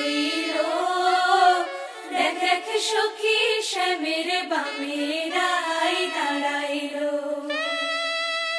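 Soundtrack music: several voices singing a chant-like vocal line. Near the end a single instrument note comes in and is held steady.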